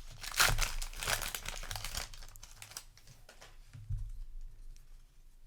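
Foil wrapper of a Magic: The Gathering collector booster pack crinkling as it is torn open, loudest in the first two seconds, then fainter rustling with a brief crackle about four seconds in.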